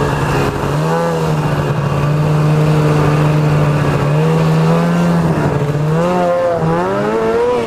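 Ski-Doo snowmobile engine running as the sled moves off across snow, the throttle opened and eased several times: the engine note climbs about a second in, again around four seconds, and twice near the end, holding steady in between.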